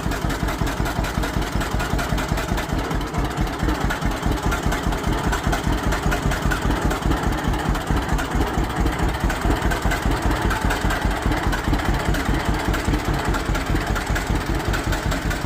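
1948 John Deere Model A two-cylinder engine running at a slow, even putt-putt, each firing stroke a separate beat.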